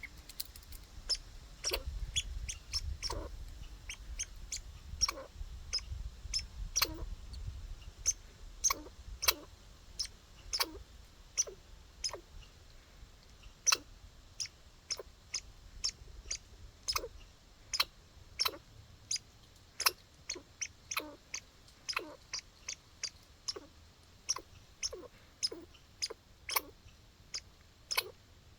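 A squirrel feeding, making a long series of sharp clicks at uneven spacing, about two a second, that sound like hiccups.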